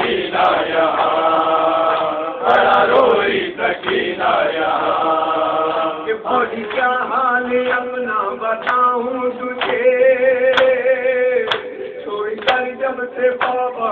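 Urdu noha (Shia lament) sung by a male lead reciter with a chorus of men, who hold long notes in the first half. In the second half sharp beats about once a second keep time, the chest-beating of matam.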